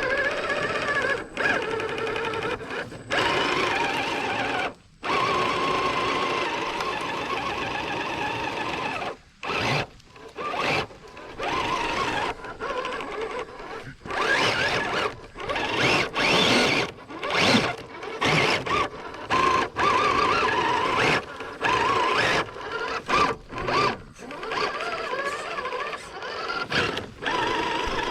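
Traxxas TRX-4 Sport RC crawler's electric motor and geared drivetrain whining under throttle, in stop-start bursts with short pauses as it is driven over creek-bed terrain.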